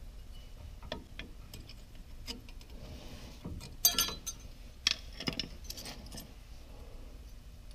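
Light metallic clicks and clinks of small steel brake-pad clips being handled and pressed into a brake caliper bracket. The loudest cluster of clinks comes about four seconds in, with a few more just after.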